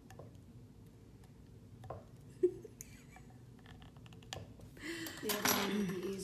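Small hand tool clicking and scraping against a glitter tumbler while picking up the edge of a vinyl stencil, with one sharp click about two and a half seconds in. Near the end comes a short vocal sound.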